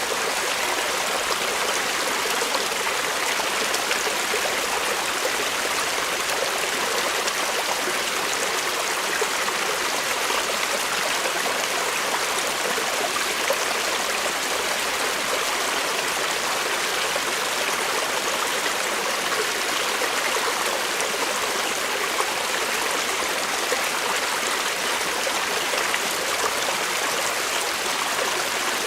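Forest creek running steadily over rocks, a continuous rushing and babbling of flowing water.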